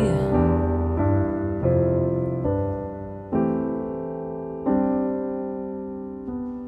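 Grand piano playing the song's closing chords slowly. Each chord is struck and left to ring and die away, and the strikes come further apart toward the end.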